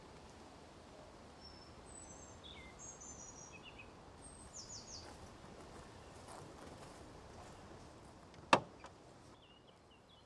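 Faint outdoor ambience with a few short bird chirps in the first half, then a single sharp knock about eight and a half seconds in.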